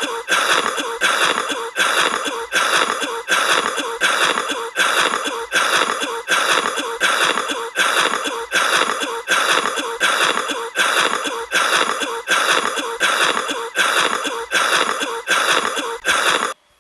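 Cartoon ducks coughing: one short wheezy coughing clip looped over and over, about four repeats every three seconds. It cuts off abruptly just before the end.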